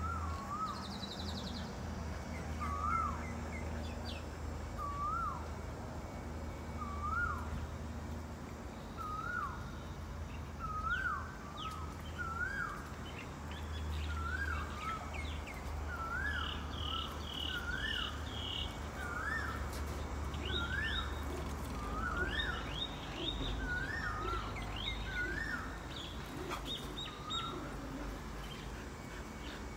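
Birds singing outdoors. One bird repeats a short call that rises and then falls, about every second and a half, and the calls come more often later on. From about halfway, other birds add quick higher chirps, all over a low steady hum.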